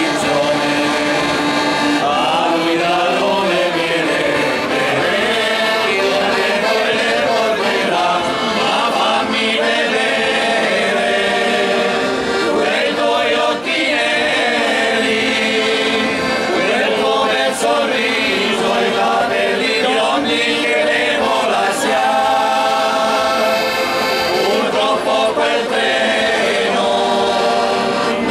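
A group of men singing together in chorus, accompanied by an accordion.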